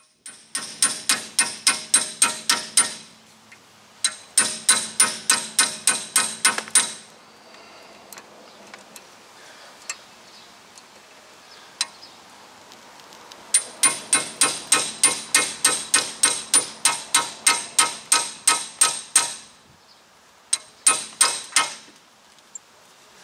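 A hammer striking metal in rapid runs of about five or six blows a second, with a metallic ring, in four bursts, driving a bit into a seized Phillips rotor-retaining screw to shock it loose.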